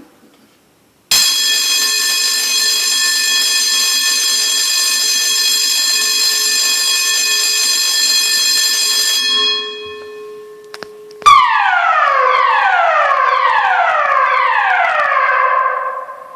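Building fire alarm system sounding: a steady electronic alarm tone for about eight seconds, then after a short gap a tone that slides downward over and over, about once a second. The repeated falling tone is the evacuation signal that tells occupants to leave the building.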